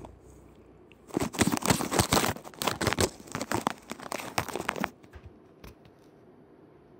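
A tabby cat's paw reaching into a container through a round opening and scrabbling against the wall and the phone right at the microphone, trying to get at a snack: a dense run of rustling and scraping that starts about a second in and stops abruptly about four seconds later, followed by a few faint ticks.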